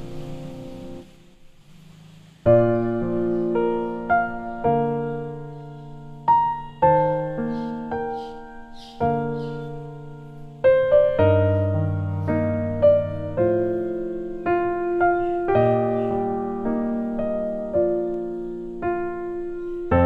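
Background piano music: single struck notes and chords in a slow, even melody. It comes in about two and a half seconds in, after a brief lull.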